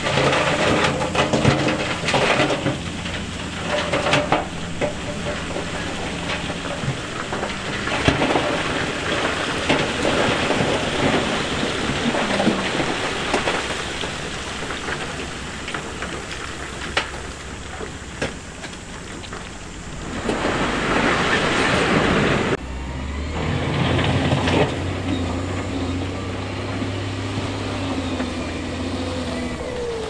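Heavy diesel construction machinery running, with a continuous rumble and clatter of rock and stone. About two-thirds of the way through, the sound changes abruptly to a steadier low engine note.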